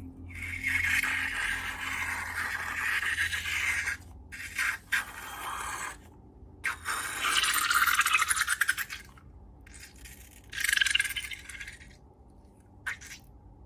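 Slime being worked by hand: a series of sticky, scraping strokes with a fine crackle, the loudest about two thirds of the way through.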